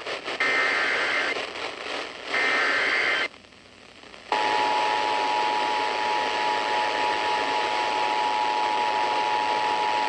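Emergency Alert System activation over the radio: the last two of the three SAME header data bursts, each about a second long, then about a second's pause, and then the steady two-tone attention signal, which runs on. Radio hiss lies under it all.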